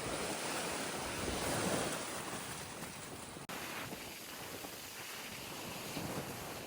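Waves washing onto a beach, with wind buffeting the microphone. The sound breaks off for an instant about halfway through.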